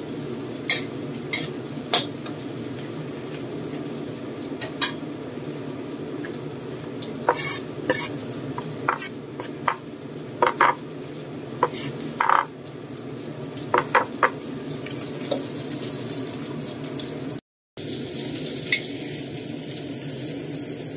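Metal spatula scraping and clacking against a stone-coated wok while eggplant stir-fries, with a dozen or so sharp, irregular strikes over a steady sizzle of frying. The sound cuts out for a moment near the end.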